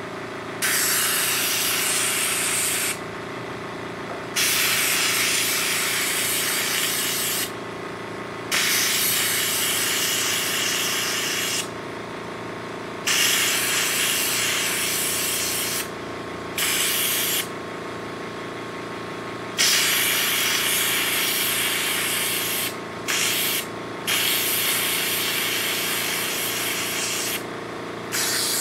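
Sandblaster gun blasting abrasive onto a rusty steel mower deck, the hiss starting and stopping in repeated bursts of a few seconds each, over a steady hum.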